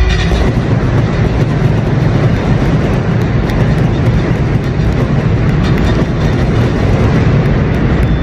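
Stadium pyrotechnics firing: a loud, dense rushing roar of spark fountains and bursts that stays at a steady level throughout.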